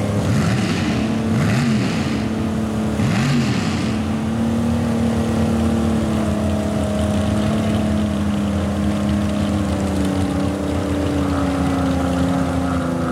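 Mud-bog buggy's engine running hard as it churns through a mud pit, with three short rev surges in the first few seconds, then holding a steady high-revving drone.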